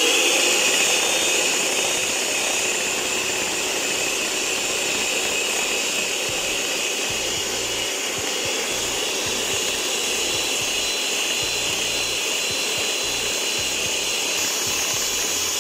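Electric hand mixer running steadily, its twin wire beaters whisking whipping cream and mango puree in a glass bowl as the cream is beaten toward stiff.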